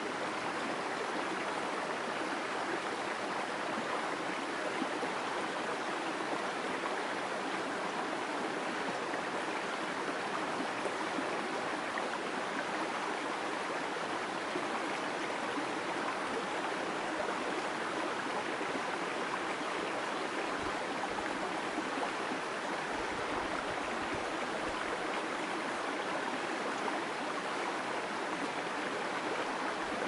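Shallow mountain stream babbling steadily over rocks.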